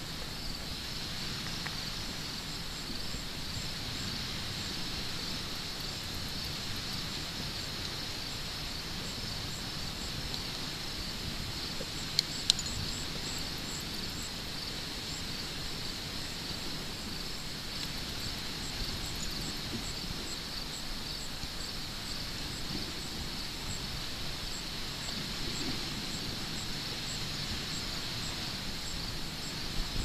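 A steady chorus of insects in the weeds: a continuous high trill with a higher chirp repeating at a regular beat above it. Two sharp clicks sound about twelve seconds in.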